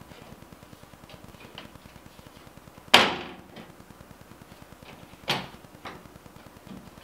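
Return-air vent grille being pushed shut and latched over a freshly fitted HVAC air filter. It gives a sharp, loud snap with a short ringing tail about three seconds in, then a second snap and a smaller click a couple of seconds later.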